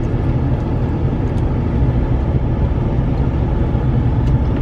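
Steady low rumble inside a car cabin with the engine running, with a few faint light clicks on top.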